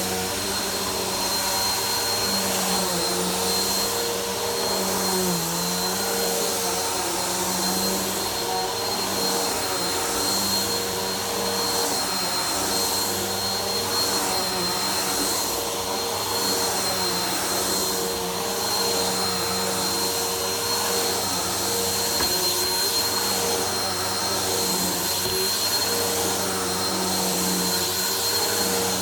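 Vacuum cleaner running steadily while vacuuming a dirty floor: a constant motor whine over airflow noise, with a brief dip in pitch about five seconds in.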